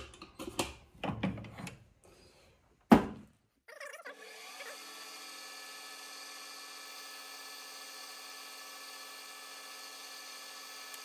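A few clicks and knocks of tooling being handled, with one sharp knock about three seconds in; then a metal lathe starts and runs steadily with a pitched hum, its chuck spinning.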